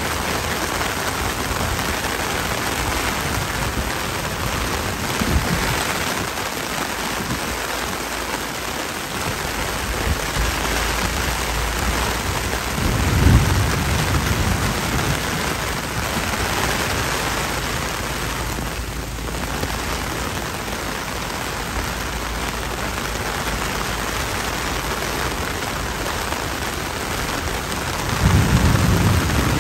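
Heavy downpour falling steadily on pavement and a flooded road. A low rumble swells briefly twice, about a third of the way in and again near the end.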